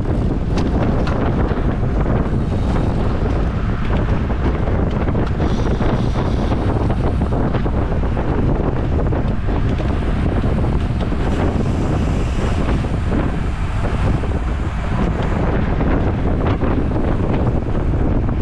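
Wind rushing over the microphone of a camera carried on a racing bicycle at speed, a steady loud buffeting, with scattered light clicks.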